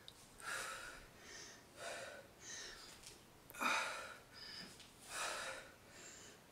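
A woman breathing hard through her mouth while doing weighted squats: short, quick breaths in and out, about eight over a few seconds.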